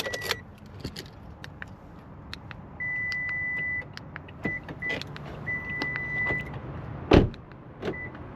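Electronic beeps from programming a remote key fob for a 2015 Toyota RAV4: a short beep, then a mix of short and second-long steady tones at one pitch, among light clicks. A single louder thump comes about seven seconds in.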